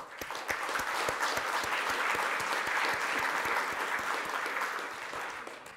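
Audience applauding: steady clapping from many hands that dies away near the end.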